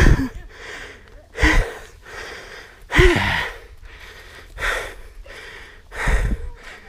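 A person breathing hard and out of breath, five heavy gasping breaths about a second and a half apart, close to the microphone, some with a slight voiced grunt.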